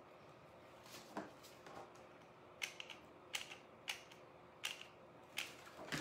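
A series of light, sharp clicks and taps, about seven spaced roughly half a second to a second apart, from small craft pieces (cork and acorn caps) being handled on a work table.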